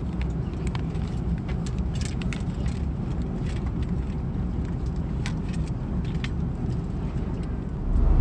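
Steady cabin drone of an Airbus A330-900neo in flight, with small clicks and crinkles as the aluminium foil lid of a meal tray is handled and peeled back. The drone jumps louder near the end.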